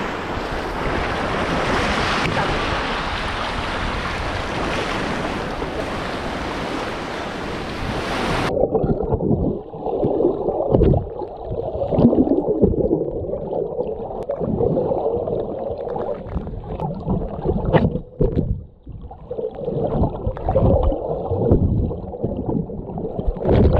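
Surf washing and wind buffeting the microphone. About eight seconds in, the sound cuts abruptly to a muffled, low sloshing with uneven thumps and swells.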